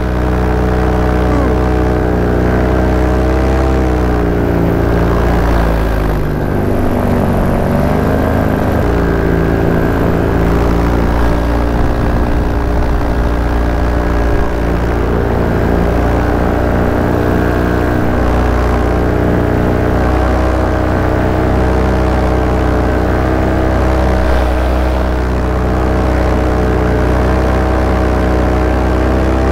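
Small aircraft's engine and propeller running steadily in flight. The engine note dips and wavers for a few seconds about six seconds in, then settles back.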